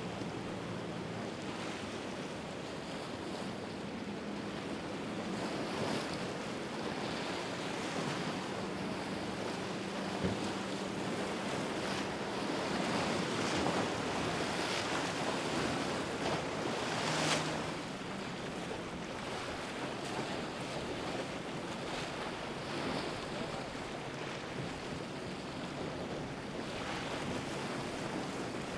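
Choppy water and boat wakes washing in an inlet, with the low steady hum of passing powerboat engines and some wind on the microphone. Brief splashes stand out now and then, the loudest about 17 seconds in.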